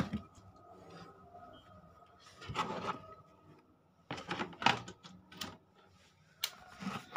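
Handling noise of a power cord and three-pin plug at a wall socket: a sharp click at the start, then scattered rubbing, scraping and knocks. A faint steady high tone runs underneath.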